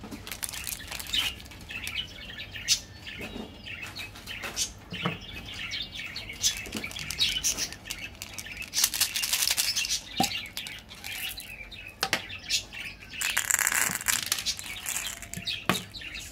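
Plastic candy wrappers crinkling and rustling as they are handled and opened, with irregular crackles and sharp clicks throughout.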